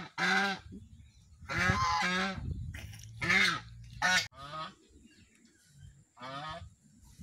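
White domestic goose honking repeatedly: about five or six calls, one longer drawn-out honk around two seconds in and shorter ones after.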